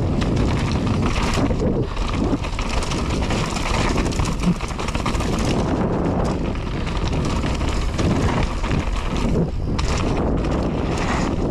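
Mountain bike running down a rough downhill trail: wind rushing over the microphone, with tyre noise and a continual clatter of the bike over the ground.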